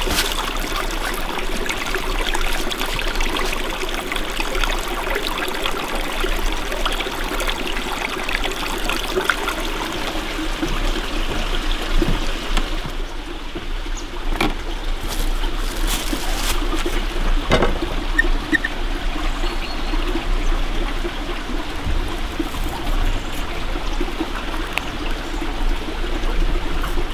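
A stream flowing and trickling steadily over rocks. In the second half the sound changes, the high hiss drops, and a few sharp knocks and clicks come through.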